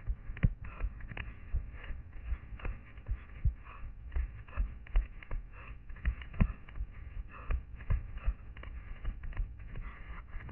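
A runner's footsteps through forest undergrowth, picked up by a head-mounted camera: irregular low thuds from the strides and jolts, with rustling of shrubs brushing past.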